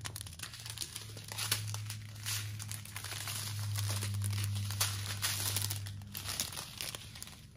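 Plastic drill bags of a diamond-painting kit crinkling as they are handled and set down on the canvas. A low steady hum runs under it from about a second in until about six seconds in.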